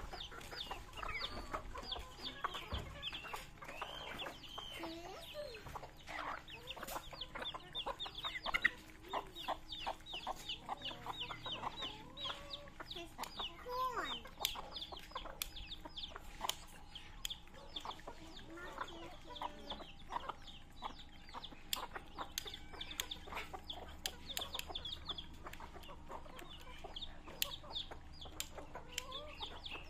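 A flock of native chicken hens clucking while chicks peep continuously in many short, high, falling calls. Many sharp ticks run through it, beaks pecking feed off concrete.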